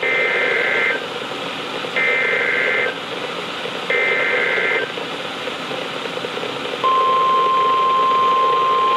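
Emergency Alert System SAME data header on NOAA Weather Radio: three bursts of two-tone data warble, each just under a second long and two seconds apart, over receiver static. About seven seconds in, the steady 1050 Hz weather radio alert tone starts. Together they open a new alert, here a severe thunderstorm watch.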